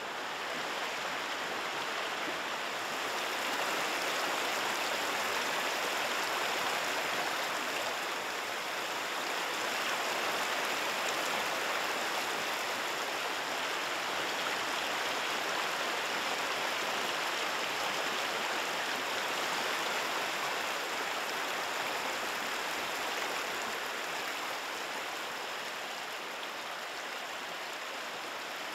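River water flowing and rushing steadily, an even continuous rush that grows a little louder a few seconds in.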